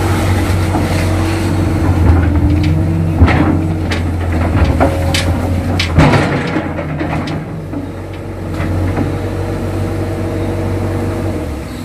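Kato crawler excavator's diesel engine running steadily under load while the bucket digs mud, with several sharp clanks and scrapes from the bucket and boom; the engine sound cuts off suddenly near the end.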